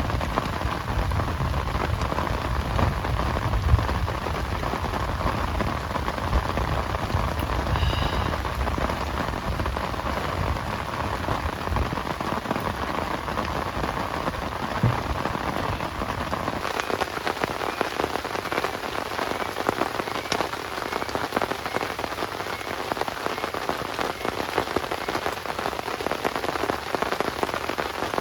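Heavy rain falling steadily, a dense hiss of many drops. A deep low rumble under it drops away a little over halfway through.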